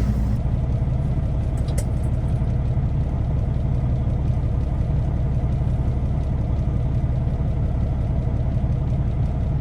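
Semi-truck diesel engine running steadily with a low rumble. The driver says the truck is running terrible, with a shakiness that he hopes new fuel filters and an injector flush will clear up.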